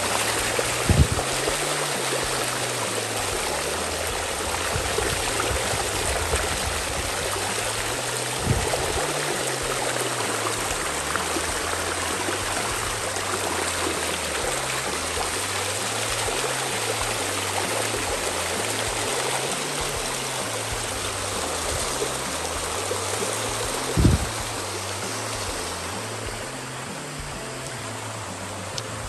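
Creek water rushing and splashing over smooth rock slabs in a shallow cascade, a steady hiss of running water. A few short thumps break in, the strongest near the end.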